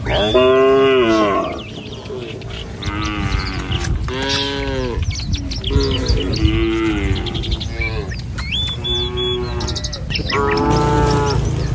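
Cattle mooing repeatedly, about six long calls one after another from the herd, some higher and some lower in pitch. A short high chirp comes in about nine seconds in.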